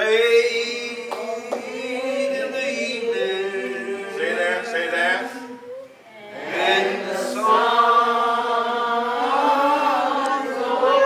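Slow hymn singing, with voices holding long, drawn-out notes. The singing breaks off briefly about six seconds in, then resumes.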